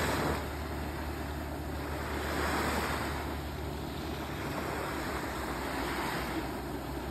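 Handheld fountain firework spraying sparks with a steady hiss that swells a little a few times.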